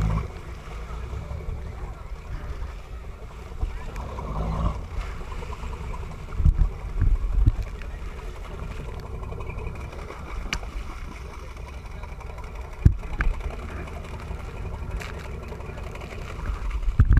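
Sea water rushing and splashing along the side of a moving sportfishing boat, close to the waterline, over a low rumble from the boat. A few heavier surges of water come near the middle, and there is a single sharp knock against the hull near the end.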